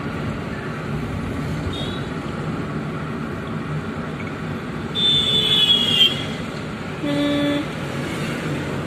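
Steady road and engine noise inside a moving car on a highway. A high, slightly falling tone sounds for about a second around the middle, and a short vehicle horn honks near the end.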